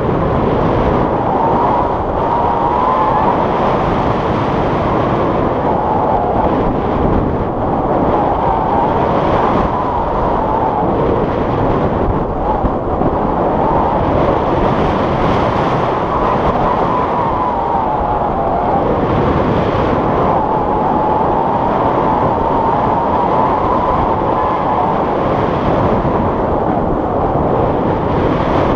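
Airflow rushing and buffeting over an action camera's microphone during a tandem paraglider flight, a loud, steady roar with a faint whistle wavering up and down in pitch.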